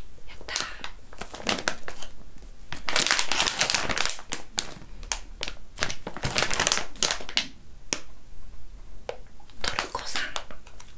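Plastic pouch crinkling and rustling as fingers squeeze, rub and turn it, in uneven spells that swell louder about three and six seconds in.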